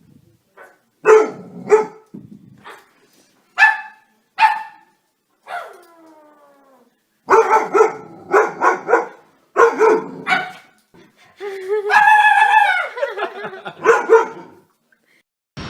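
A dog barking in short, loud bursts, with a falling drawn-out whine about six seconds in and a longer howling call near the end.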